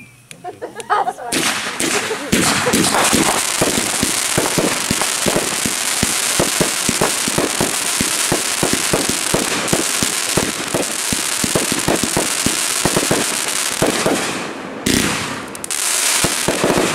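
A ground-fired multi-shot firework going off: a rapid, dense string of pops and crackles over a steady hiss starting about a second in, then a brief pause and a final volley near the end.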